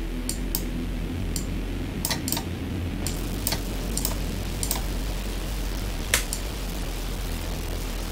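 Deep, dark synth pad from Serum sustaining as a low drone, with sharp computer-mouse clicks every second or so as settings are changed; the loudest click comes about six seconds in.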